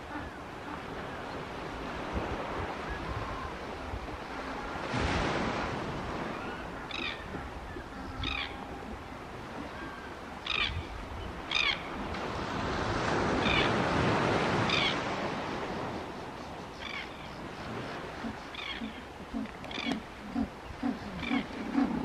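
Surf washing on the beach, swelling twice, with short high bird calls every second or two. Near the end a low, rhythmic pulsing call builds up, the start of an African penguin's braying call.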